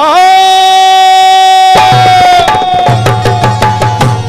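A male singer holds a long sung note at the end of a line of a Marathi Bhim geet. About two seconds in, a run of quick hand-drum strokes comes in, with a deep thud under them.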